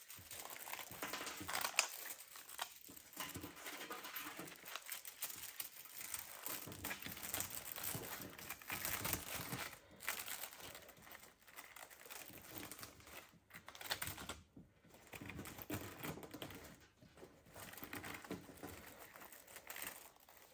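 Rustling and crinkling of evergreen greenery and Christmas decorations being handled, with many small clicks and crackles.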